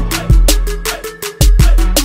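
Background music with a heavy, deep bass beat and sharp percussion hits.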